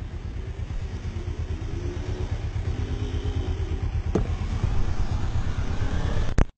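Vehicle engine running steadily with a pulsing low rumble and light hiss, a single sharp click about four seconds in; the sound cuts off abruptly near the end.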